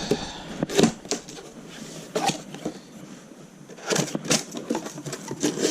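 Product box being opened and unpacked: packaging rustling with several sharp knocks and taps, the loudest a pair about four seconds in.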